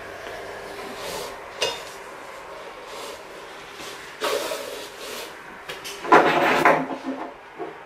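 Rustling and clattering as a webbing tie-down strap is handled around a stack of empty tin cans, with brief knocks and a louder rattle about six seconds in.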